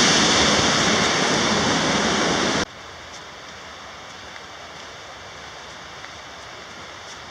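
Waterfall on Paulina Creek rushing loudly and steadily. After about two and a half seconds it cuts off abruptly to a much quieter steady hush with a few faint ticks.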